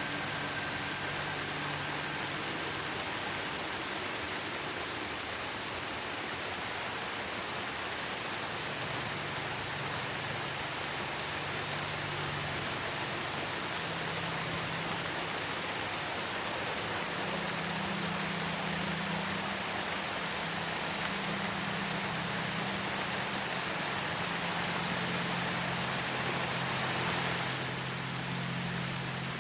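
Steady rain falling, an even hiss. Under it, soft low sustained tones of an ambient pad that change pitch every few seconds.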